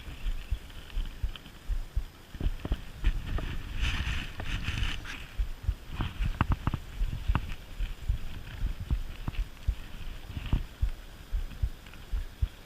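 Wind buffeting the microphone in uneven low rumbles over the steady rush of a flowing trout stream; the water hiss swells briefly about four seconds in.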